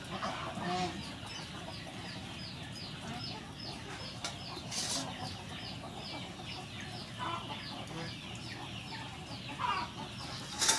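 Chickens clucking, with a fast, steady run of short high chirps repeating through it.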